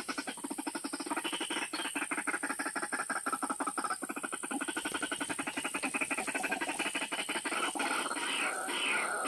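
White-breasted waterhen calls: a fast run of croaking pulses, many a second, that turns near the end into slower, higher repeated notes.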